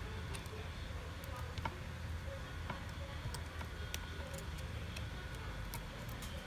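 Light, irregular clicks and ticks of small repair tools against a Samsung Galaxy S7's parts as the phone is taken apart, over a steady low hum.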